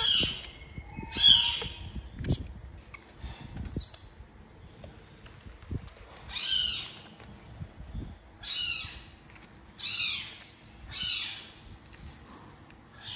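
Baby monkey squealing: a series of short, high-pitched cries, each a quick sweep in pitch, repeating every second or two with a brief pause near the middle. Soft rustling and light knocks of handling sit underneath.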